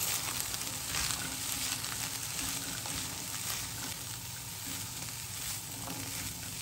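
Diced green beans and carrot sizzling in hot oil in a wok, stir-fried with a spatula that scrapes and pushes them around the pan in repeated strokes.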